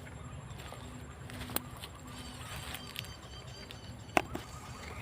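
Faint high bird chirps over a steady low rumble, with a few sharp clicks, the loudest about four seconds in.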